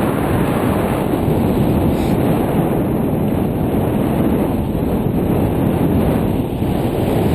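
Wind rushing over the exposed microphone of a GoPro Hero 2 in its open housing during paragliding flight: a loud, steady rumble of airflow.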